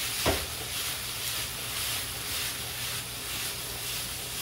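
Shrimp and vegetables sizzling steadily in a frying pan over a gas flame while the pan is tossed, with one sharp knock just after the start.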